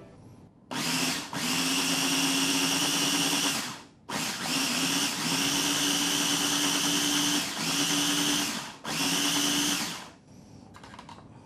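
A small electric food processor runs in four pulses: two of about three seconds each, then two of about a second, with short gaps between them. Its motor gives a steady whine as it blends ricotta with milk and parmesan into a smooth cream.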